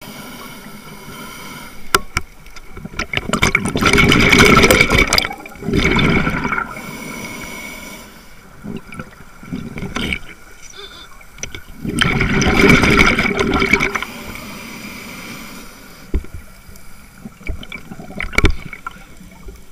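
Scuba diver's regulator breathing heard underwater: two long rushing, gurgling bursts of exhaled bubbles about eight seconds apart, with scattered sharp clicks and a quiet hiss between breaths.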